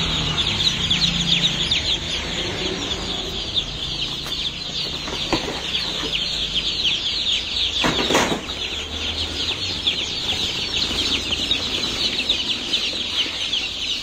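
Dense, continuous chorus of high, falling peeps from a crowd of day-old chicks and ducklings packed in crates, the calls overlapping without a break. A brief knock sounds about eight seconds in.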